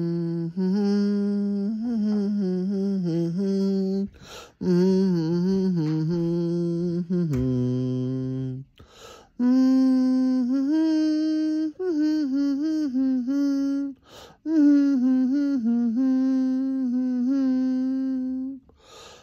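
A man humming a tune with his mouth closed, a song he has had stuck in his head, in four melodic phrases of held and gliding notes separated by short pauses for breath.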